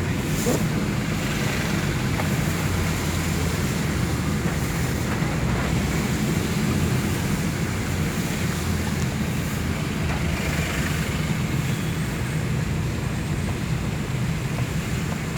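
Steady rushing noise of heavy rain and water with a deep, even rumble of traffic underneath.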